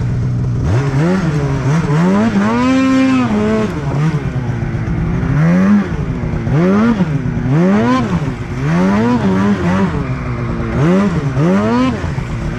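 Snowmobile engine revving up and down over and over as the sled is ridden through deep powder, its pitch rising and falling about once a second, with one longer rev about two to three seconds in.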